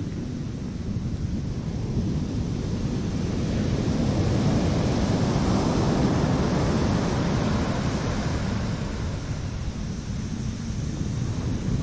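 Ocean surf breaking and washing up a sandy beach, with wind buffeting the microphone. The wash swells about a third of the way in and eases off again.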